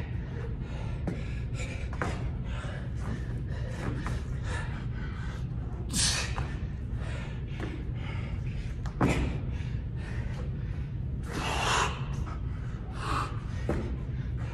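A man breathing hard from exertion, in a quick run of loud gasps and forceful exhales over a steady low hum. About two-thirds of the way through there is a single sharp knock, followed by a longer, harder exhale.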